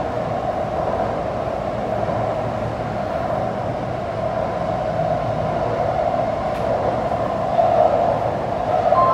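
Taipei Metro train running through an underground tunnel, heard inside the passenger car: a steady rumble and hiss of wheels and traction motors, swelling slightly near the end.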